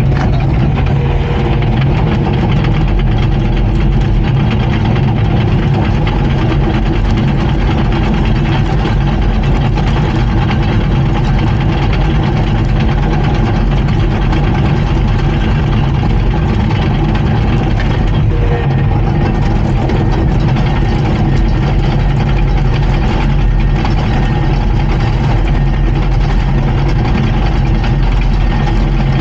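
Komatsu D39PX bulldozer's diesel engine running at a steady speed.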